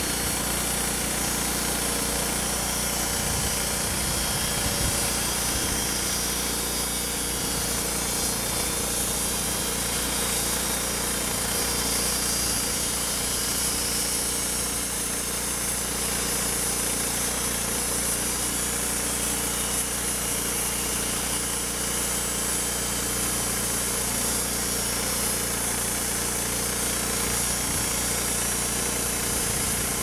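Homemade band sawmill with a 15-horsepower petrol engine running steadily under load, its fresh band blade sawing a cut half a metre wide through a log.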